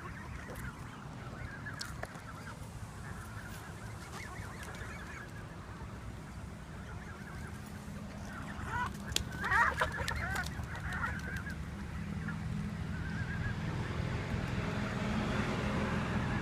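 A flock of geese honking and calling, with a loud burst of honking about nine to ten seconds in, over a low steady hum.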